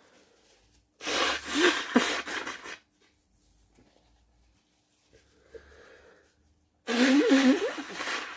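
A man sneezing loudly twice, each sneeze a long, noisy blast with a wavering voiced tail, the first about a second in and the second near the end. A faint breath is drawn in between them.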